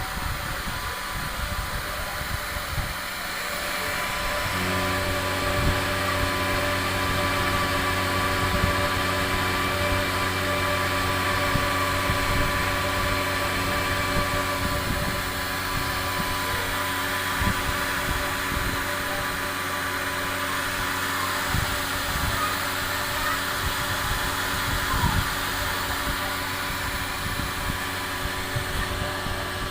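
Homemade 12-volt air conditioner running: a steady fan whir, joined about four seconds in by a steady motor hum that holds.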